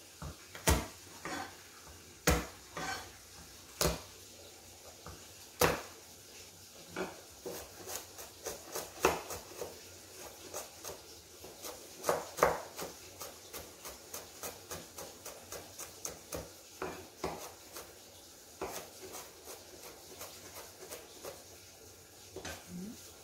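Cleaver chopping garlic cloves on a wooden cutting board. A few sharp knocks a second or two apart come first, then a quicker run of lighter chops, about three or four a second, as the garlic is minced.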